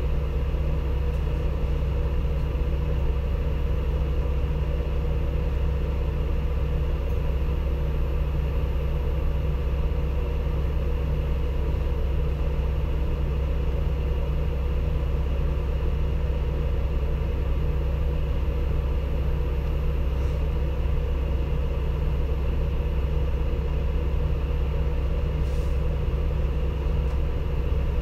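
Engine of an Isuzu Erga Mio compressed-natural-gas city bus idling steadily, a constant low hum that holds one pitch throughout, as the bus stands still.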